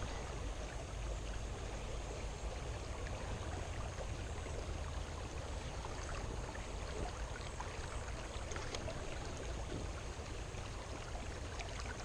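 Steady rush of a shallow river running over a gravel and cobble bed.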